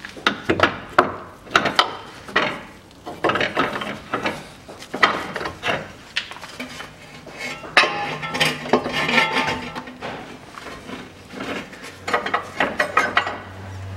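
Irregular metallic clinks and knocks of a pry bar against steel suspension parts, coming in clusters with a quick rattle near the end, as the front drive axle's splined end is worked into the wheel hub and the lower arm levered into place.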